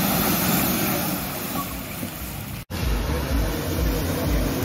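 Off-road 4x4 engines running hard through a muddy water pit: first one truck pushing through with its wheels throwing up mud, then, after an abrupt cut a little over halfway, another with a low pulsing engine note.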